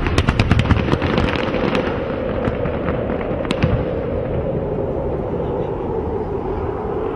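Aerial fireworks: a rapid run of crackling pops and bangs in the first two seconds that thins out, then one more sharp crack about three and a half seconds in, over a steady background din.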